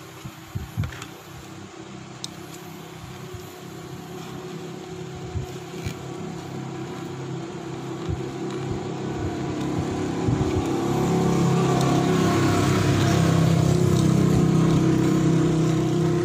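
Small toy-car DC motor running, its bare spinning shaft pressed against the edge of a phone's back panel to scrub off old adhesive: a steady buzzing hum that grows louder over the second half, with a few light clicks in the first couple of seconds.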